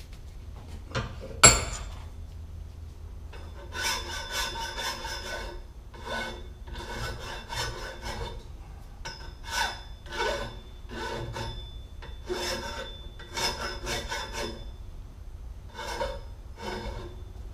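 Hand-file strokes deburring the cut edge of 2" × 2" × 3/16" square tubing: a run of rasping strokes, roughly one a second, with pauses between them. A single sharp knock comes about a second and a half in.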